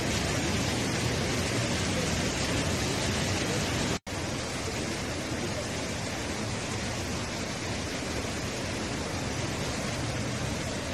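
Flash-flood torrent of muddy water rushing, a steady, even rushing noise, broken by a brief dropout to silence about four seconds in where the footage cuts.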